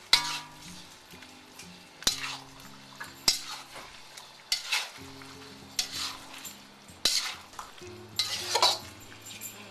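A utensil stirring and scraping chicken, tomatoes and black bean sauce around a wok, with a light sizzle, the sauce just thickened with cornstarch. The scrapes come about every second or so.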